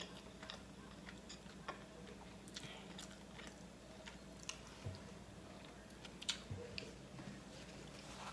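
Faint, close-up chewing of smoked turkey leg meat, with soft, irregular mouth clicks.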